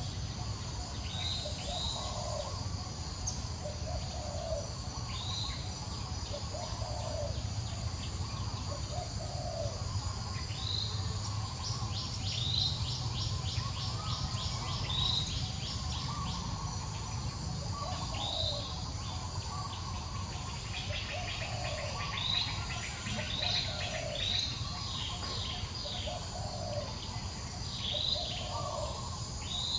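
Birds calling in the trees: short, arching chirps repeated every second or two, twice breaking into a quick run of ticking notes, with lower calls in between. A steady low rumble lies underneath.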